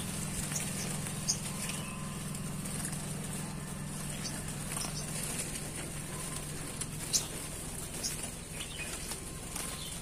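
Small caged songbirds fluttering and hopping about their cages, with a few faint short chirps and ticks scattered through, over a steady low hum.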